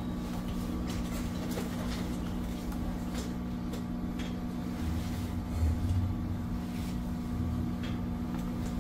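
Steady electrical hum from workbench equipment with a low rumble, and a few faint clicks from a laptop touchpad.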